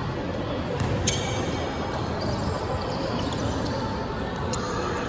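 Steady hubbub of a gymnasium during a stoppage in a basketball game, with faint voices. A sharp knock rings out about a second in, and a softer one comes near the end.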